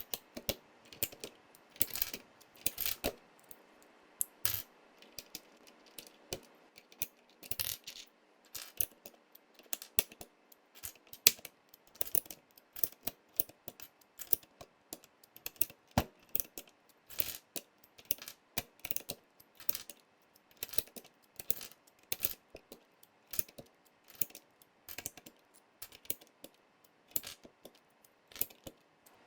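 Irregular sharp plastic clicks and clacks from a Royal Kludge RK100 mechanical keyboard and its keycaps, a couple to a few a second, some louder than others.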